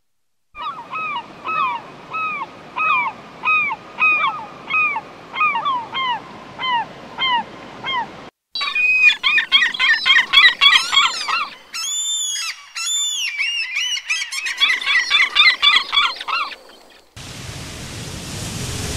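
Gulls calling over and over, about two calls a second, for some eight seconds. Then a flock of swans calls in a dense chorus of overlapping honks, and near the end the calls give way to a steady hiss.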